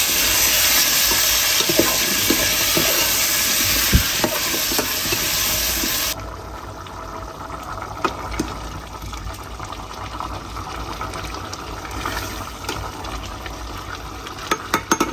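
Diced potatoes frying in a metal pot with a loud sizzle while a metal ladle stirs and scrapes against the pot. About six seconds in the sizzle stops abruptly, leaving quieter stirring of a leafy potato stew, with the ladle knocking and clinking on the pot.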